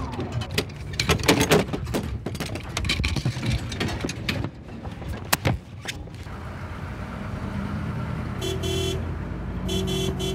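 A rapid run of crashes and clattering knocks, then a steady low traffic rumble with two short car-horn honks near the end.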